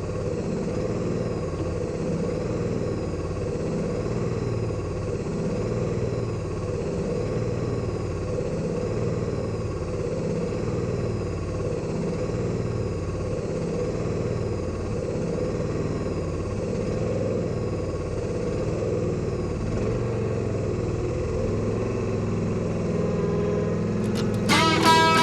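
Vehicle engine running steadily while driving, with a faint high squeak repeating about every second and a half. Acoustic guitar music comes in near the end.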